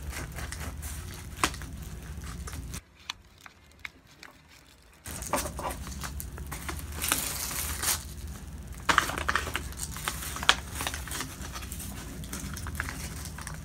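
A knife sawing through a flaky pastry patty crust on its foil-lined paper wrapper, with crackling of the crust and crinkling of the wrapper, then the patty being pulled apart by hand. Scattered clicks and crackles, broken by a quiet gap about three seconds in.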